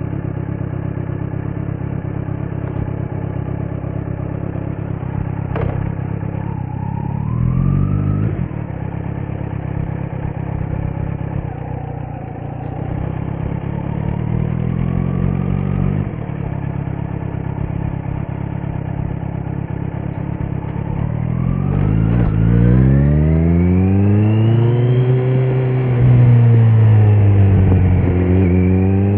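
2018 Kawasaki Z900's inline-four engine through a Leo Vince muffler with no dB killer: it idles steadily, is blipped briefly, then pulls away with the revs climbing, dropping and climbing again near the end. A single sharp click sounds a few seconds in.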